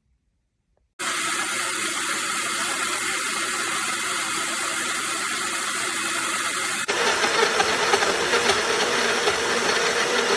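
Small 400 W blender motor switched on about a second in and running steadily with a loud whirring hiss, blades spinning in the jar; about seven seconds in the sound shifts abruptly to a rougher, lower tone.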